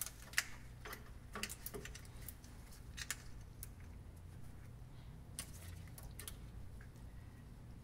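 Faint scattered clicks and light plastic rattles of an ignition coil pack's electrical connector and wiring being handled and lined up, over a faint low hum.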